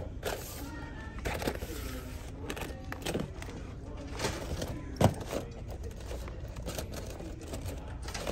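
Shop-floor background of distant voices and faint music while toy packaging is handled, with one sharp click about five seconds in, the loudest sound.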